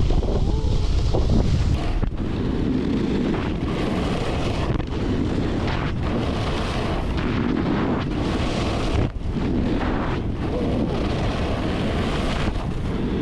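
Wind rushing over the camera microphone while snowboarding downhill, mixed with the board's edges scraping and hissing over hard-packed snow, rising and falling from turn to turn.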